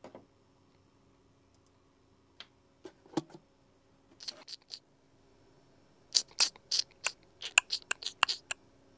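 Short, crisp scratchy sounds: a few scattered ones, then a quick run of about a dozen over the last three seconds. A faint steady hum lies beneath.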